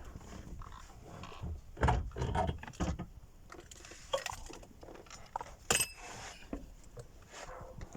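Scattered clinks, knocks and rustling of tools and metal parts being handled during a steering column repair, with a cluster of knocks about two seconds in and a sharp click just before six seconds.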